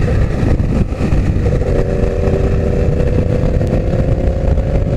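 Yamaha R1 inline-four with a full straight-pipe exhaust and no catalytic converter, running at a steady cruise under a heavy rush of riding noise. About a second and a half in, its note settles into an even, constant tone.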